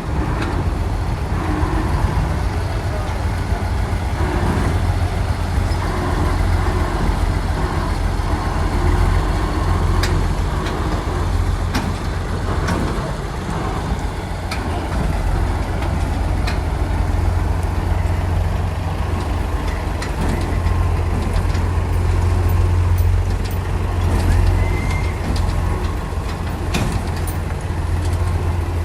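Engine of a Bharat 730 combine harvester running steadily with a deep rumble, with occasional clicks and rattles over it.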